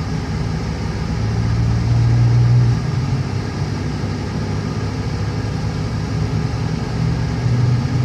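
Car running on the road, heard from inside the cabin: a steady low engine and road hum that swells for a second or two shortly after the start.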